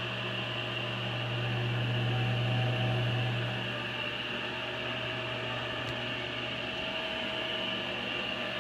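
Restored 1980s Craftsman table saw running at speed with no cut: a steady motor hum with a hiss over it.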